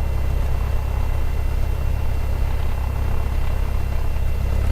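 Cessna 172 Skyhawk's piston engine and propeller running at low taxi power: a steady low drone.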